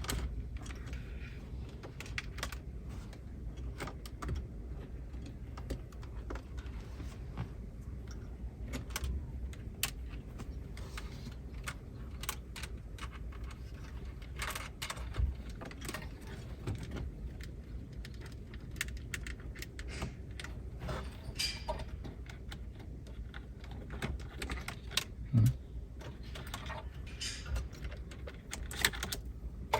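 Scattered small clicks and rattles of hands handling plastic dashboard trim and wiring inside a car, with one dull knock late on.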